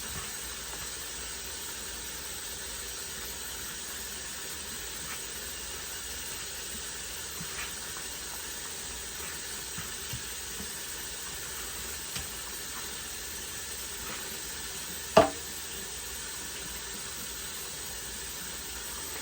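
Steady hiss of running water as wigs are rinsed in the sink, with a few light taps and one sharp knock about fifteen seconds in.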